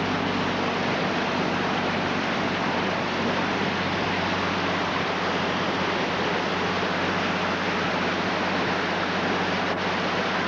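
Steady rush and churn of floodwater pushed aside by a Nissan Patrol's body and wheels as it wades through deep water, with the engine's low, even hum underneath.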